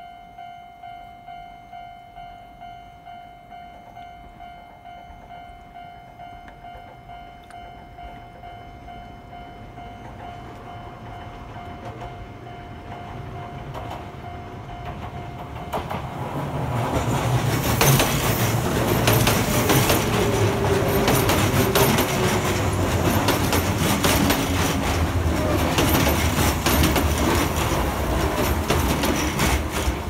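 A Japanese level-crossing warning bell rings steadily at about two rings a second while a Kintetsu train's rumble builds from about ten seconds in. At about sixteen seconds the bell stops and the train passes over the crossing close by: a loud rumble, wheels clacking over the rail joints, and a falling whine.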